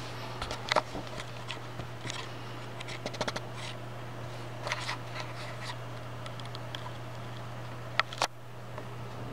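Steady low hum of a desktop PC's fans running, in a Zalman Z9 Plus case with the CPU and case fans at about 700–980 RPM. Over it come scattered light clicks and scratches, with two sharper clicks near the end.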